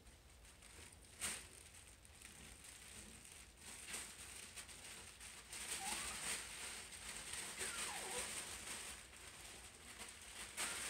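Havanese puppies' paws pattering and scuffling on a tile floor and crinkly puppy pads as they play, with a sharp tap about a second in and busier scrabbling in the middle. Faint throughout, under a steady hiss.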